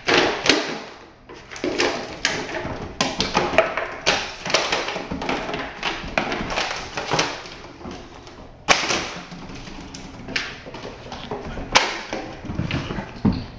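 Greater Swiss Mountain Dog playing on a hardwood floor: irregular thumps, taps and scrabbling of its paws and claws on the boards, with a small ball knocking about. The sharpest knocks come about nine seconds in and again near twelve.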